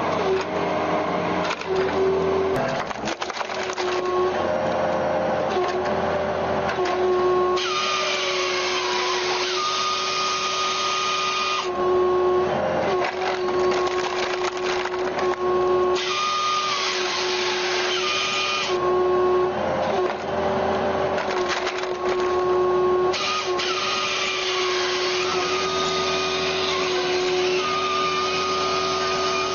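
A power saw running steadily and cutting into wood, its pitch sagging a little under load. A harsher cutting noise comes in three times, each lasting a few seconds.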